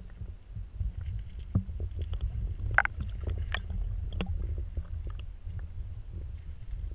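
Low, steady rumble of river current heard through a camera submerged on the streambed, with scattered small clicks and ticks. A sharper tick comes about three seconds in.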